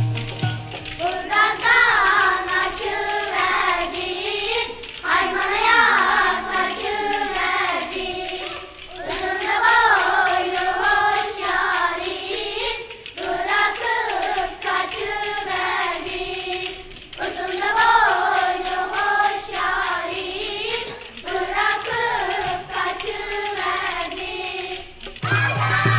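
A girl sings a Turkish folk song in phrases of about four seconds with short breaks between them. A light rhythmic clicking runs behind the voice.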